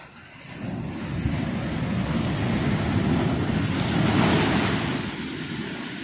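Ocean wave breaking over a rock shelf and washing across it in foam: a rushing roar that builds from about half a second in, is loudest around four seconds, then eases off.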